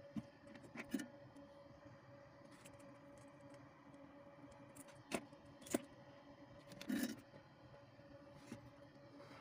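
Faint handling noises: a few small clicks and taps as a drill battery pack's circuit board and a soldering iron are handled on a cutting mat, over a steady faint hum. The sharpest click comes near the middle, and a duller, longer knock follows about a second later.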